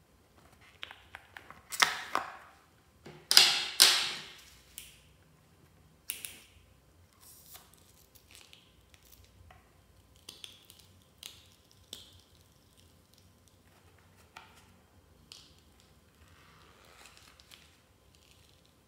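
Handling sounds from a slime-filled rubber balloon being squeezed. There are two loud noisy bursts about two and four seconds in, then scattered soft clicks and squishes as the slime is pressed out of the balloon into a bowl of glue.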